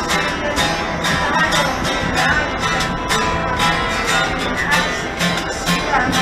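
Acoustic guitar strummed in a steady rhythm, about two or three strokes a second, played live by a busker.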